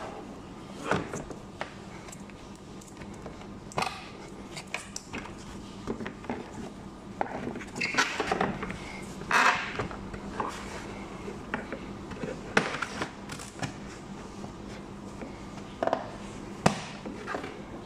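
Irregular clicks, taps and scrapes of hands working plastic interior parts during a car cabin air filter change, with a busier stretch of scraping about halfway through, over a faint steady hum.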